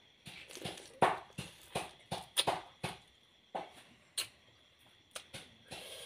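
Close-up eating sounds of steamed crab: shell and claw cracking and crunching between the teeth, in about ten sharp, irregular clicks with short pauses between them.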